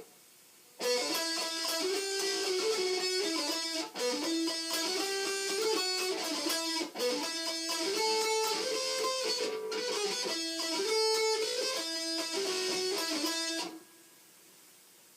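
Electric guitar with a DiMarzio Crunch Lab humbucker playing a distorted riff through a Line 6 Uber Metal pedal and a small 10-watt Fender amp. It starts about a second in and stops near the end.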